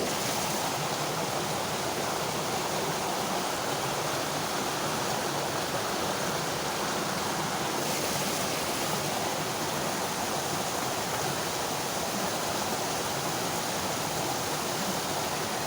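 Steady rush of flowing water from a small stream or ditch, an even hiss without breaks or changes.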